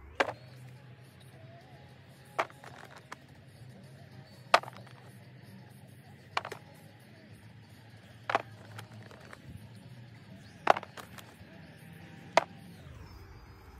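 Seven sharp clicks or snaps, one about every two seconds, from something small being worked in the hands, over a steady low hum that stops shortly before the end.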